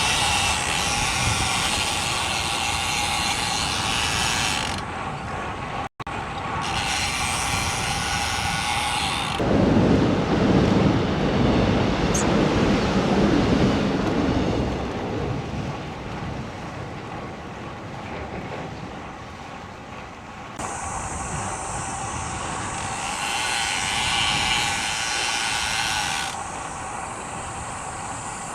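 Road bike in motion: wind over a clip-on microphone and tyre noise on the road, with the rear hub's freewheel ratchet buzzing while coasting. The wind rumble gets heavier for several seconds about ten seconds in.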